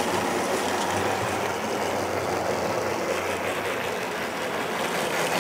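Newqida G-scale model steam locomotive running steadily around a circular track with a light load. The motor, gears and wheels on the rails make an even mechanical whirr over a low hum.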